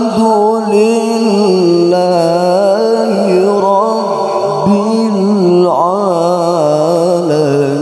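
Male qari reciting the Quran in melodic tilawah style into a microphone: one long, drawn-out melismatic note with wavering, ornamented pitch that sinks gradually lower, with a quick run of turns about six seconds in.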